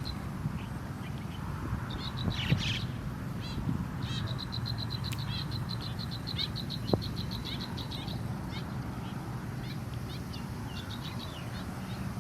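Nestling sparrows begging with rapid, high, repeated chirps, in a long fast run of about eight chirps a second in the middle, over a steady low hum. Two sharp taps are heard, once with a burst of calls.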